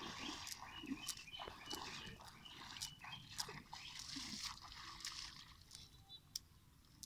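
Shallow pond water splashing and sloshing as people wade through it, with scattered sharp splashes.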